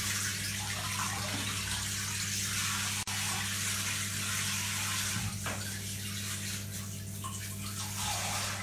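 Water running from a handheld shower sprayer into a filled bathtub: a steady hiss, with a steady low hum underneath.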